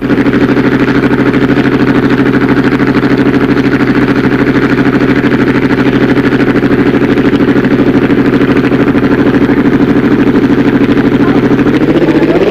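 Dragster engine idling loudly with a fast, even lope. Near the end its pitch starts to climb as it is revved.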